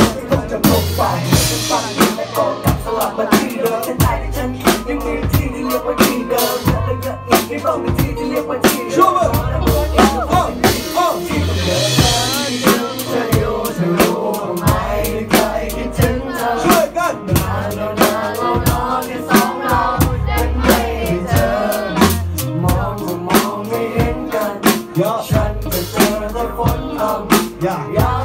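A live band plays a hip hop song, with drum kit, bass and electric guitar, while two vocalists rap and sing into microphones. The drums keep a steady beat under heavy bass notes.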